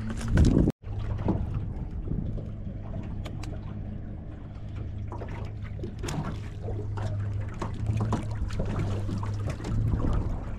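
Water sloshing and trickling against a small aluminum boat's hull over a steady low motor hum, with scattered light knocks. The sound drops out sharply for a moment just under a second in.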